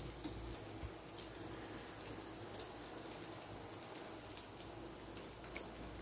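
Breaded chicken fillets frying in hot oil: a faint, steady sizzle with a few scattered small pops.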